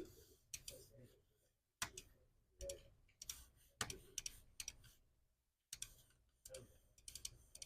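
Faint, irregular clicks and taps, about one or two a second, some in quick pairs.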